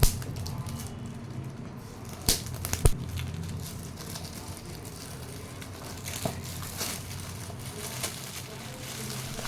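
Gift packaging being cut open by hand: a steady faint crinkling of wrapping with sharp snapping clicks, the loudest two close together about two and a half seconds in.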